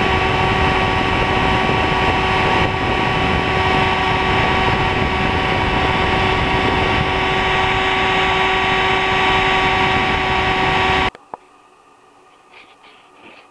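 Hobby CNC engraving machine's spindle motor running with a steady whine of several tones over a loud hiss while engraving brass. It cuts off suddenly about eleven seconds in, leaving only a few faint clicks.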